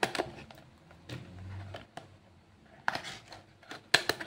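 A small sealed product package being opened and handled: a few sharp clicks and scrapes, a cluster at the start and more about three and four seconds in.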